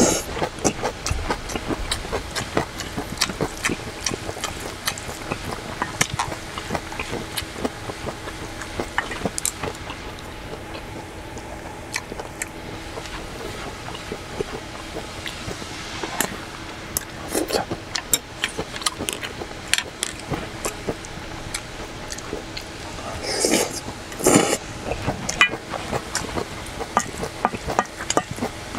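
Eating sounds: chewing and slurping food off a wooden spoon, with small clicks of chopsticks and a spoon against a stainless steel bowl. Louder slurps come near the start, about 17 seconds in, and twice around 24 seconds in, over a faint steady hum.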